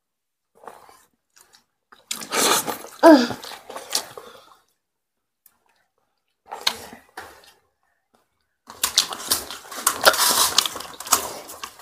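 People eating rice and fish curry by hand from steel plates: chewing, and fingers mixing rice against the plates, which becomes a dense run of small clicks and smacks in the last three seconds. A short vocal sound that rises and falls in pitch comes about three seconds in.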